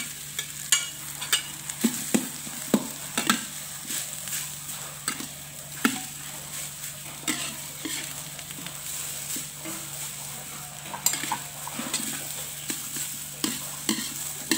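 Rice being stir-fried with egg and greens in a metal wok: a spatula stirs and scrapes against the pan with irregular clicks, over a steady sizzle and a low hum.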